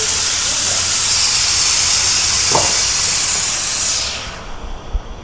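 Air rushing out of a car tyre through the open valve stem after the valve core is removed: a loud, steady hiss that dies away about four seconds in as the tyre empties.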